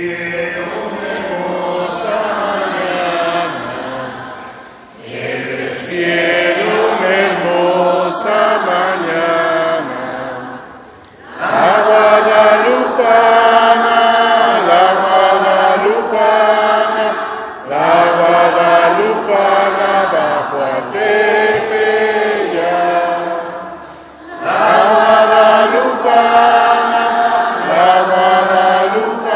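A man singing a religious chant into a microphone, amplified through the church's sound system. He sings in long held phrases, with short breaks about every six seconds.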